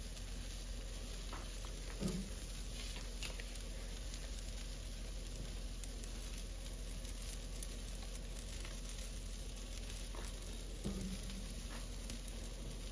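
Chicken drumsticks and chuck steak sizzling on a charcoal grill over hot coals: a steady hiss with fine crackles. A brief soft knock about two seconds in and another near the end.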